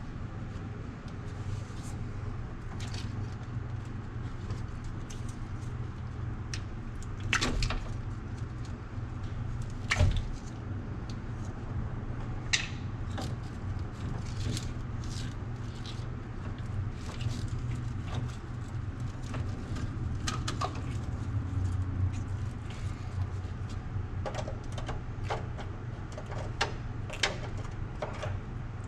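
Scattered metallic knocks and clicks from hand work on the truck, over a steady low hum. The loudest knocks come about seven and ten seconds in, and a run of lighter clicks comes near the end.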